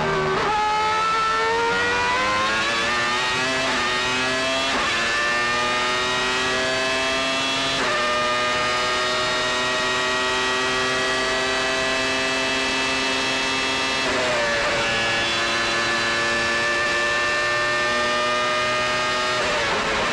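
Formula One car's high-revving engine heard onboard. It comes off a corner and accelerates, its note rising through several upshifts over the first eight seconds. It then holds a steady high note flat-out for about six seconds, drops as it lifts and shifts down, holds again, and falls off near the end as it slows.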